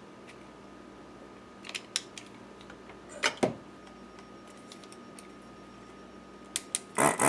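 Plastic clicks and snaps from a handheld desoldering iron being handled and put back together after its blockage was cleared. Near the end its vacuum pump switches on with a loud buzzing whir.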